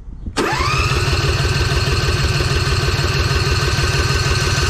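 Electric starter cranking the newly installed Briggs & Stratton V-twin engine of a John Deere Z425 zero-turn mower: the starter whines up in pitch, then the engine turns over with even, rapid pulsing without catching, because there is no fuel in it yet.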